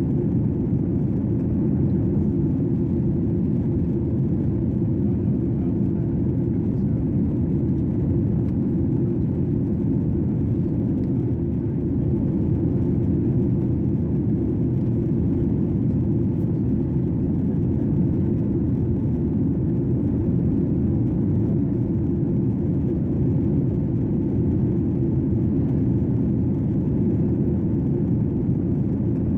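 Steady low cabin noise of an airplane in flight, heard from inside the cabin at a window seat: an even, unchanging rumble of engines and airflow.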